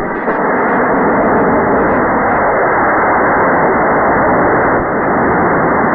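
G74 high-power model rocket motor firing at liftoff, a loud, steady rushing roar.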